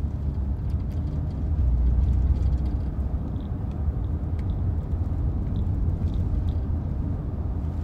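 Steady low rumble with a few faint ticks, a little louder about two seconds in.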